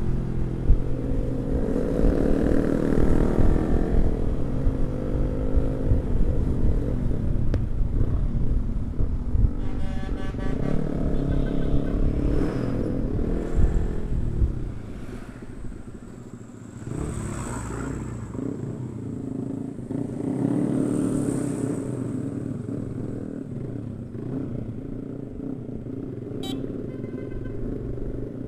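Yamaha R15 V3 motorcycles' single-cylinder engines running on the road, a steady engine note with rumble that drops away about halfway through, then comes back quieter.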